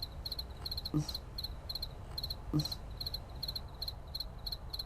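Cricket chirping steadily, about three high-pitched chirps a second, each a quick run of two or three pulses. Two brief low-pitched sounds stand out about a second in and again past the halfway point.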